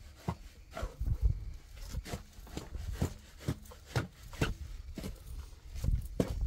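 Shells of hard-boiled eggs cracking and crackling as they are peeled by hand: irregular sharp clicks, about two a second.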